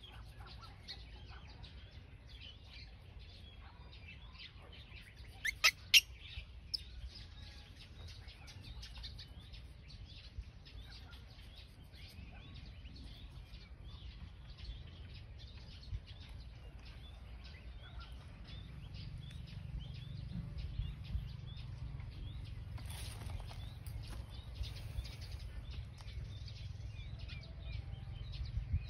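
Small birds chirping continuously. About six seconds in, a few sharp clicks, the snips of small metal nail clippers cutting a baby monkey's fingernails. A low rumble grows in the second half.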